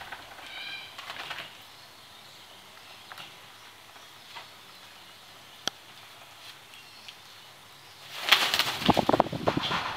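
A bird of prey flapping its wings hard on a falconry glove, a fast run of wingbeats for about a second and a half near the end: an eager food response from a hungry bird.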